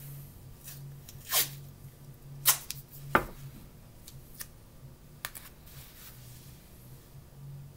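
Adhesive tape being pulled off the roll and torn to fasten an elastic ankle bandage: three short, sharp rips in the first half, then a few faint ticks as the tape is handled and pressed down.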